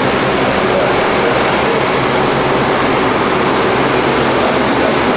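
Loud, steady engine drone with a low hum underneath, unchanging throughout.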